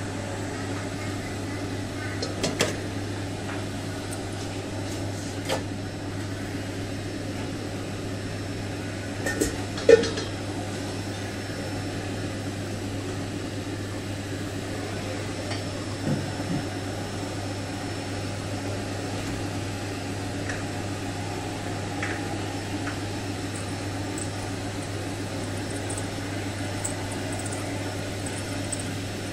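Steady low kitchen hum, with a few clinks and knocks of a steel pot and utensils, the loudest about ten seconds in.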